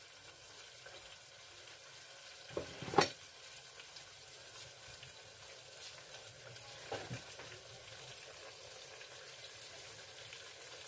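Boneless fish fillets frying in very hot oil, a steady sizzle. A sharp knock about three seconds in, with a fainter one just before it and another about seven seconds in.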